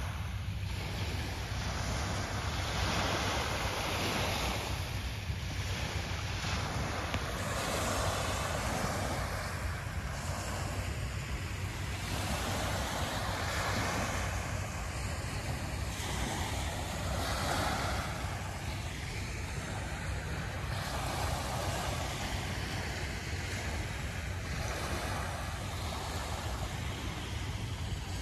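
Small waves lapping and washing onto a pebbly shore, swelling and falling back every couple of seconds, over a steady low rumble of wind on the microphone.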